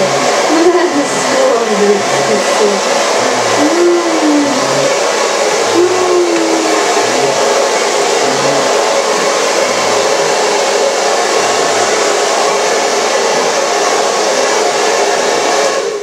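Handheld hair dryer blowing steadily at close range over a bulldog's fur, with an even rushing whir; it cuts off at the very end.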